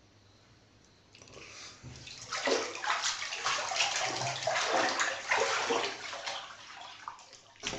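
Water splashing and sloshing, starting about a second in and going on in uneven surges.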